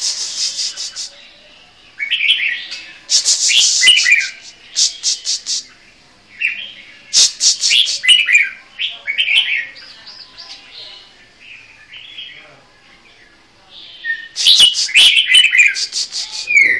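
Caged songbirds singing in bouts of quick chirps and fast rattling trills, with a lull of a few seconds past the middle before a loud burst of song near the end.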